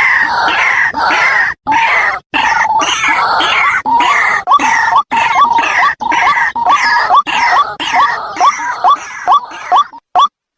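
White-breasted waterhen calls from a lure recording: a loud, rapid run of repeated harsh notes, about three a second, broken by two brief dropouts. Near the end it thins into separate short rising notes with gaps between them.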